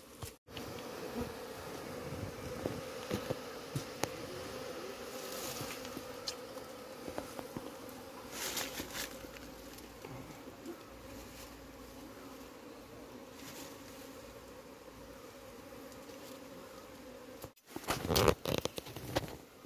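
Honeybee colony buzzing around its comb in a steady droning hum. Rustling and handling noises come about halfway through, and louder ones near the end.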